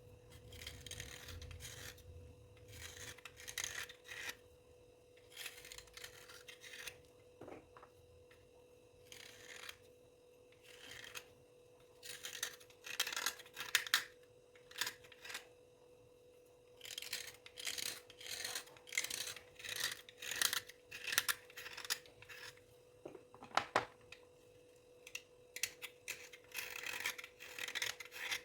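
Dry scraping and rubbing strokes, short and raspy, coming in irregular clusters with brief pauses between them, over a faint steady hum.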